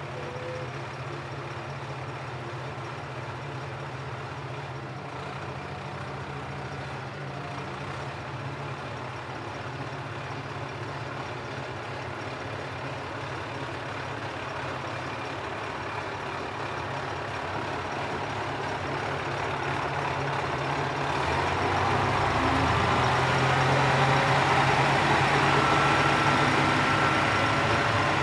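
Sanriku Railway 36-series diesel railcar's engine idling steadily, then throttling up and getting louder about two-thirds of the way through as the railcar pulls away. A thin high whine joins in near the end.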